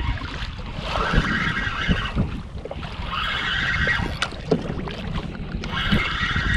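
Water washing along a kayak's hull in surges every second or two, with wind buffeting the microphone.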